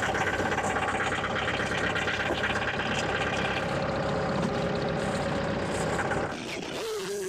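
1942 Farmall M tractor's four-cylinder engine idling steadily; the engine sound cuts off abruptly about six seconds in, and background music starts near the end.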